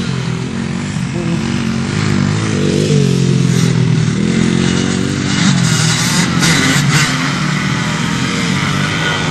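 Motocross dirt bike engine running under way, its note rising and falling as the throttle opens and closes.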